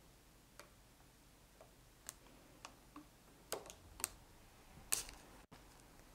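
Thin plastic stencil and its paper masking being peeled up off freshly applied gesso putty. Faint, scattered clicks and crackles, about six, the loudest a little before the end.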